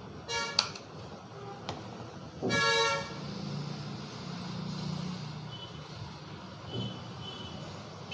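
Street traffic with vehicle horns honking: a short toot at the start and a louder half-second honk about two and a half seconds in, then fainter horn beeps near the end over a low engine rumble. A sharp click sounds just after the first toot.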